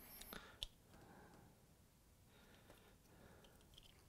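Near silence, with a couple of faint clicks in the first second as a small relay and its circuit board are handled by hand.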